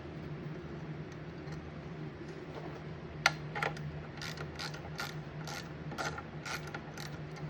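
Socket ratchet clicking in short strokes as hood latch bracket bolts are backed out, with about two or three sharp clicks a second from about three seconds in. A steady low hum runs underneath.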